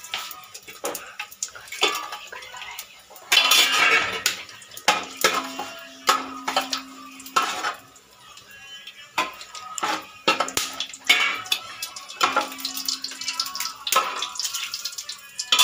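Metal ladle and steel bowl clinking and scraping against the side of an aluminium cooking pot in irregular knocks, a few strikes ringing on briefly.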